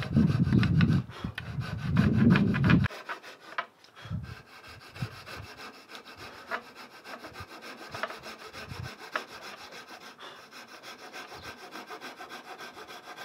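Coping saw cutting the coped profile into the end of a clamped piece of primed wood molding, in quick, even back-and-forth strokes of the thin blade through the wood. The strokes are louder and heavier for the first three seconds, then go on lighter and steady.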